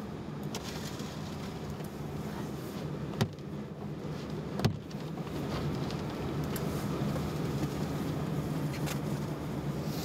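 Car engine running, heard from inside the cab as a steady low hum, growing slightly louder about halfway through. Two sharp knocks sound about three and four and a half seconds in.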